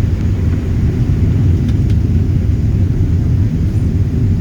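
Boeing 737 airliner in flight, heard from inside the passenger cabin: a steady low rumble of jet engines and airflow.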